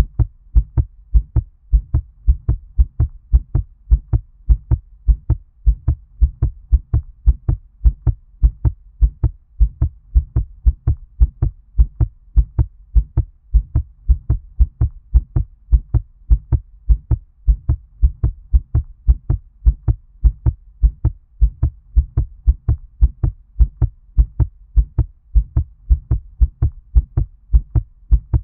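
Fast heartbeat: a steady run of muffled, low lub-dub thuds, close-spaced pairs repeating evenly, with a dull, underwater quality.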